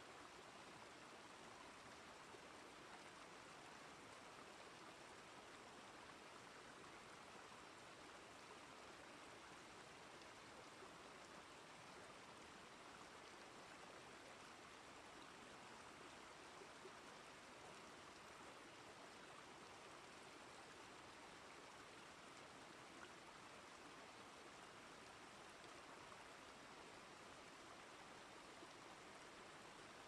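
Faint, steady rush of flowing stream water, even throughout with no distinct splashes or events.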